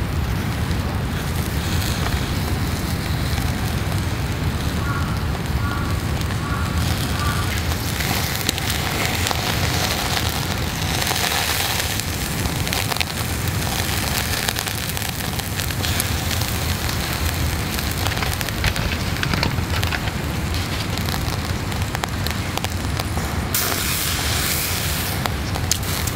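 Charcoal burning in a shichirin grill, crackling, with skewered meat sizzling on the wire grate. A brighter hiss swells for a couple of seconds near the end.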